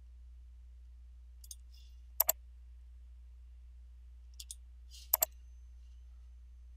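Computer mouse button clicks: two sharp double clicks, about two seconds and five seconds in, each with fainter ticks shortly before it, over a low steady hum.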